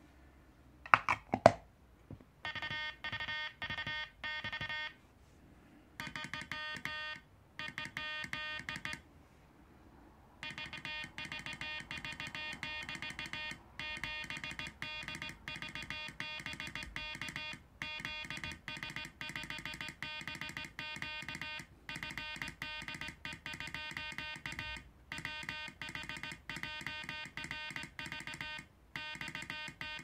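Morse code sent by hand on a sideswiper (cootie) key, heard as a steady-pitched, buzzy sidetone keyed in quick runs of dots and dashes with short pauses between groups. A couple of sharp knocks sound about a second in, before the keying starts.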